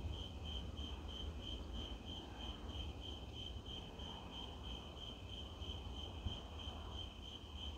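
Crickets chirping steadily, about three chirps a second in an even rhythm, with a low rumble underneath.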